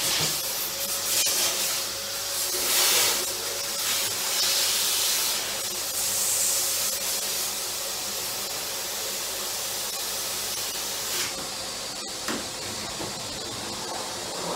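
Vacuum cleaner running, its nozzle sucking dust out of a microwave's side air vents: a steady rush of air over a steady motor whine, the rush swelling and easing as the nozzle moves.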